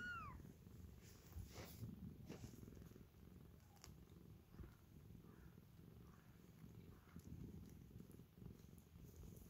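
Domestic cat purring faintly and steadily. A short falling meow ends right at the start, and there are a couple of soft rustles in the first few seconds.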